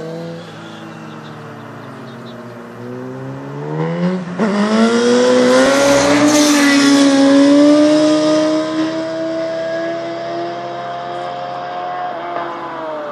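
Sport motorcycle engine revving up hard as the bike accelerates past, loudest a few seconds in, then holding a high steady note as it pulls away, with the pitch dropping near the end.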